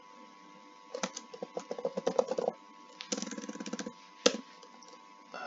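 Computer keyboard typing in two bursts of quick keystrokes, starting about one second in and about three seconds in, then one louder single keystroke just after four seconds.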